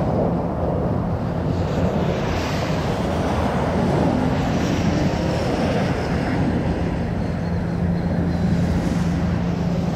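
Jet noise from a Fairchild Republic A-10 Thunderbolt II's two TF34 turbofan engines as it passes overhead: a steady rushing sound with a faint high whine.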